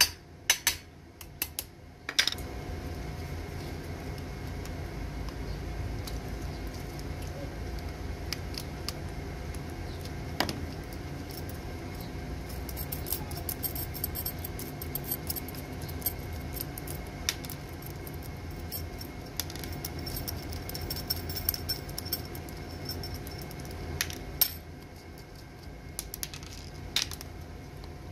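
Small metal parts clinking and jangling in the hands: a battery terminal clamp, nut and bolt and a pair of locking pliers handled on the top of a car battery, with scattered sharp clicks and taps and short runs of ringing metallic clinks. A steady low hum comes in about two seconds in and runs underneath.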